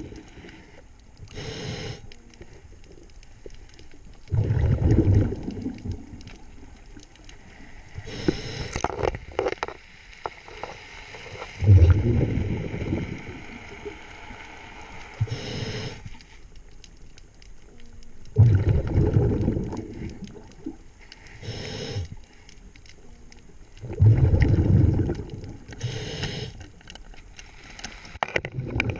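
Scuba diver breathing through a regulator underwater: a short hiss of inhaling, then a low bubbling rumble of exhaled air, repeating about every six to seven seconds, four full breaths.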